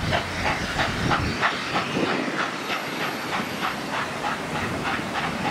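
Steam locomotive 5917, a NSW 59 class 2-8-2, working hard up a grade: a quick, even beat of exhaust chuffs, about three a second, over a steady steam hiss.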